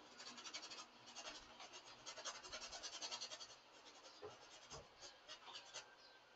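Paintbrush bristles scratching and dabbing on a stretched canvas in quick, repeated short strokes; faint.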